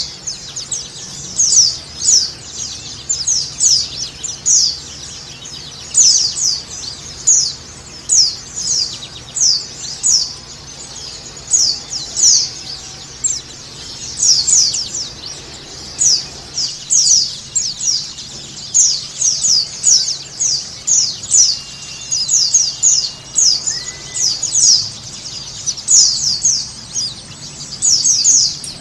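White-eyes (pleci) chirping: a continuous stream of short, high, down-slurred chirps, often in quick pairs and triplets, several a second.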